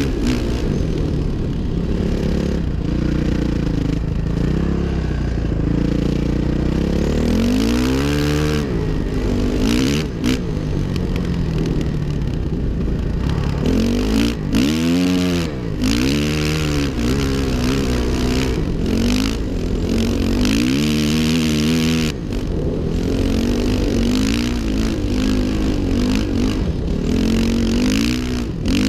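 2005 Suzuki RM-Z 450's single-cylinder four-stroke engine being ridden hard, its pitch climbing and dropping again and again as the throttle is opened and shut through the gears, over a steady rushing hiss.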